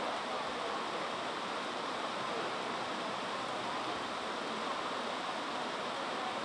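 Steady, even rushing background noise, with faint distant voices now and then.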